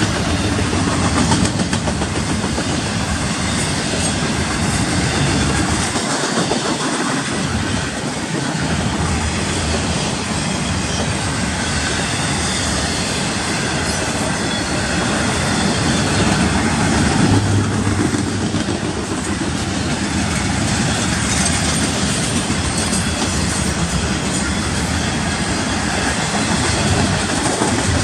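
Double-stack intermodal container cars of a freight train rolling past: steel wheels on the rails give a steady, loud rolling noise that holds even throughout.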